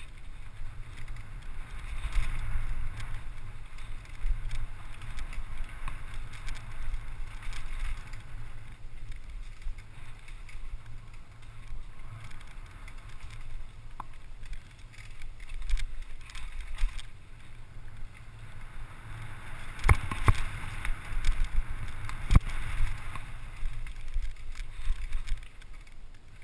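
Mountain bike ridden down an enduro trail: wind rushing over the microphone and the bike rattling over rough ground, with sharp knocks about twenty and twenty-two seconds in.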